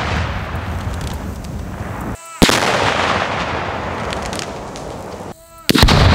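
Tannerite-and-gasoline explosion booming twice, about two and a half seconds in and again near the end. Each boom hits suddenly and fades into a long low rumble.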